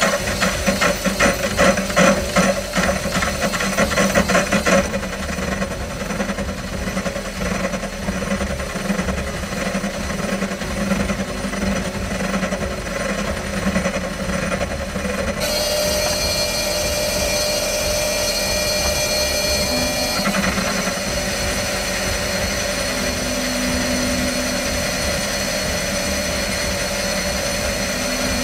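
Wabeco D6000 metal lathe running while a turning tool cuts down the outside diameter of a 4140 steel disc. The cut pulses rapidly for the first five seconds, then runs steadier, and the sound shifts abruptly about fifteen and again about twenty seconds in.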